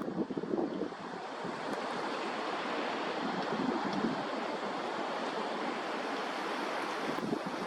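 Strong, steady wind at about 12 m/s from the south: the back-side winds of a passing typhoon. It buffets the microphone in gusts near the start and the end.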